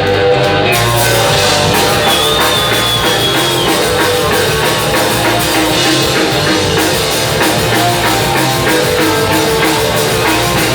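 Rock band playing an instrumental intro: electric guitars over a full drum kit with a steady beat.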